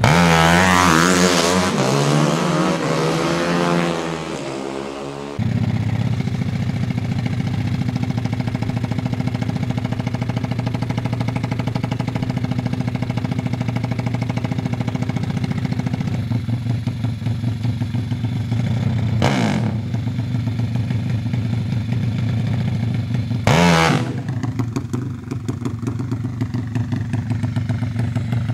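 Two-stroke drag-racing motorcycle engine. It revs up and down for the first few seconds, then runs at a steady idle, with two short throttle blips at about 19 and 23 seconds.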